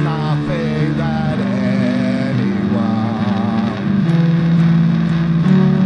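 Music with steady held low notes and a wavering melody line above them.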